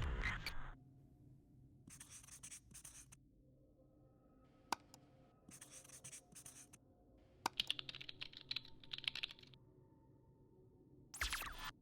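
Intermittent scratching and rubbing sounds in short bursts, with a louder burst at the start and near the end and a single sharp click a little under halfway through.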